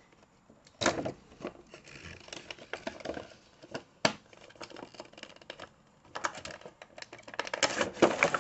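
Action-figure window box being opened by hand: scattered clicks and crinkles of cardboard and clear plastic packaging, with sharp snaps about one second and four seconds in and dense crinkling near the end.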